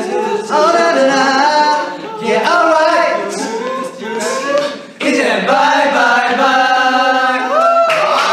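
A group of young men singing together without instruments, several voices holding and bending notes, with a brief break about five seconds in and a rising slide near the end.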